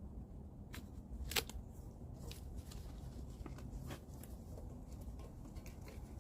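Paper drywall joint tape being handled and pulled off its roll, a few scattered light crackles and sharp clicks over a faint steady hum.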